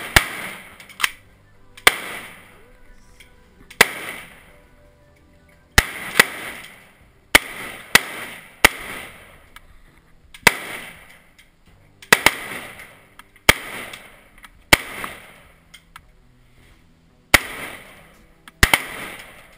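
Rifle fired in single shots at an uneven pace, about seventeen in all with a few quick doubles. Each sharp crack trails off in a short echo.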